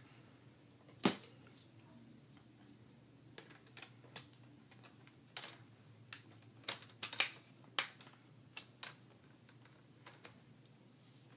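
Irregular sharp clicks and taps of plastic laptop screen parts being handled and fitted, with a louder click about a second in and a cluster between about seven and eight seconds.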